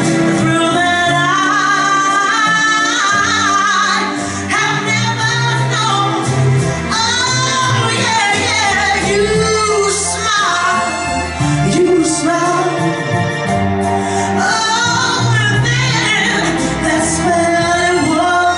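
A woman singing a soul ballad live over band accompaniment, her voice bending and sliding through ornamented runs.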